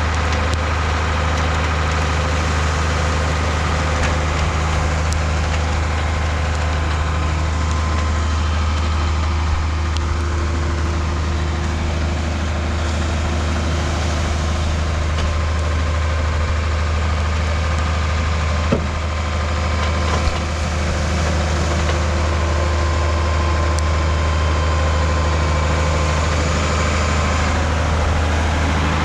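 Boat engine idling with a steady low hum, with two brief knocks about two-thirds of the way through.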